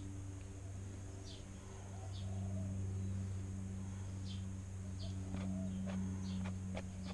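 A small pump humming steadily, with birds chirping briefly several times over it and a few light knocks in the second half.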